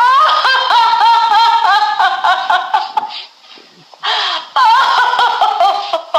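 A woman laughing hard in a high-pitched run of quick, rhythmic "ha" pulses, pausing to draw a breath about four seconds in, then laughing on again.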